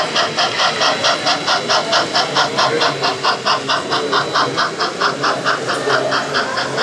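Sound-equipped model steam locomotive chuffing steadily, about four to five chuffs a second.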